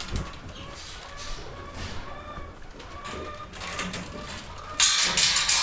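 Soft bird cooing, a few faint short calls, then a louder burst of rustling noise near the end.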